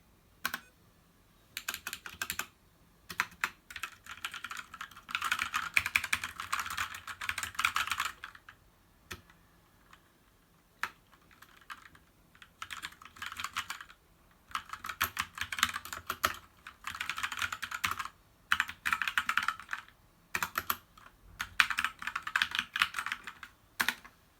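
Typing on a Keychron K4 mechanical keyboard with brown tactile switches: quick runs of keystroke clicks, each run lasting one to a few seconds, with short pauses between them.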